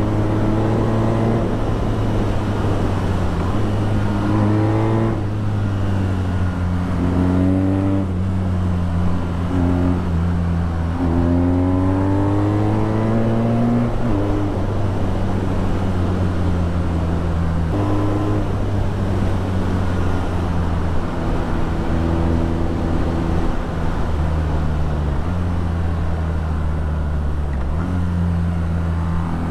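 BMW R nineT's 1170 cc air/oil-cooled boxer twin through an Akrapovic exhaust, riding along: several pulls of rising engine pitch, each cut by a drop at a gear change, with stretches of steady cruising between.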